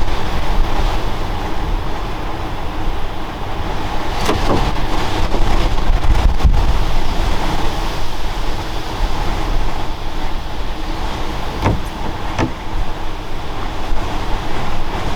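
Steady low rumbling noise with an uneven level, and a few faint clicks about four seconds in and twice near twelve seconds.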